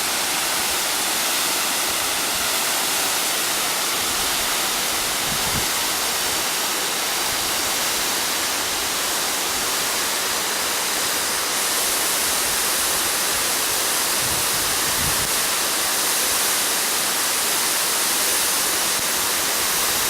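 Waterfall pouring steadily: a constant, even rush of falling water, a little brighter and hissier from about halfway through.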